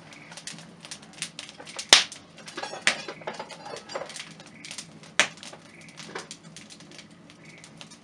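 Wood fire crackling in a clay stove: a dense run of small irregular pops, with two sharper cracks about two and five seconds in.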